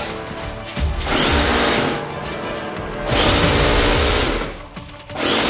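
Airsoft electric rifle (AEG) firing full-auto bursts, its motor-driven gearbox whirring: three bursts of about a second each, the last starting near the end.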